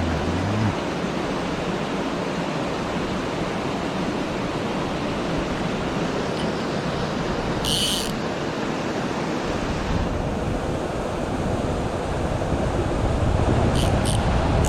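A mountain stream rushing steadily over rocks. There is one brief high-pitched sound about eight seconds in, and a low rumble builds over the last few seconds.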